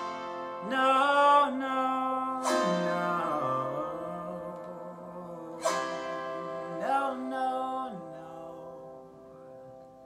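Autoharp chords strummed about every three seconds, each left to ring out and fade. Two short wordless sung phrases come between the strums.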